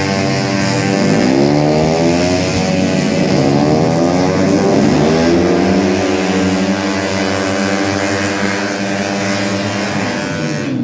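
Several racing automatic scooter engines running hard at high revs together, their pitch rising and falling over one another as the bikes accelerate, back off and pass.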